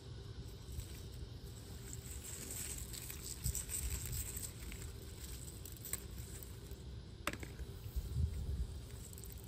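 Pepper plant leaves and stems rustling as peppers are picked by hand, with a few sharp clicks and a low rumble on the microphone.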